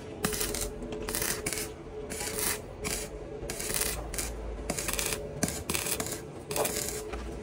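Abrasive strokes worked back and forth by hand on iron, about two or three a second, as in filing or sanding the railing's metal, over a faint steady hum.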